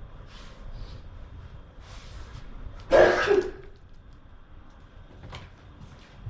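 A person sneezes once, loudly, about three seconds in: a sudden burst lasting about half a second with a short pitched tail.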